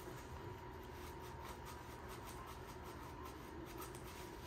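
Faint scrubbing of a paper towel rubbed back and forth over a plastic car roof grab handle, a quick even run of short rubbing strokes.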